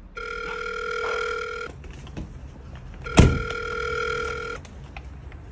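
A telephone ringing twice, each ring about a second and a half long. A sharp knock lands just as the second ring begins.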